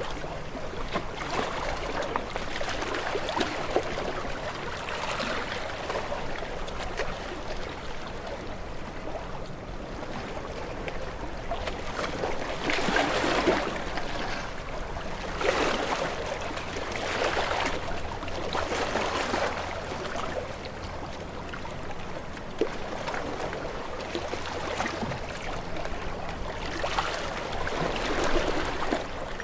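Small waves lapping and washing in, swelling and fading in irregular surges a couple of seconds apart.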